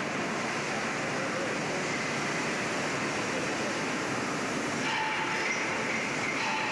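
Steady mechanical din of a locomotive repair shop, an even noisy rumble, with faint whining tones coming in about five seconds in.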